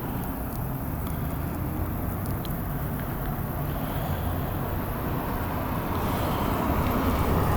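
Outdoor traffic rumble: a steady low noise that swells louder over the last couple of seconds as a vehicle draws nearer.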